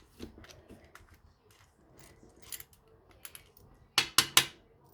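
Small metal clicks and rattles as a padlock is handled and worked with a screwdriver, then three sharp loud metallic clicks in quick succession near the end.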